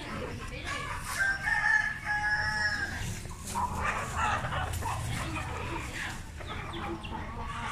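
A rooster crowing once, a long call from about one to three seconds in, followed by shorter clucking calls from the caged chickens.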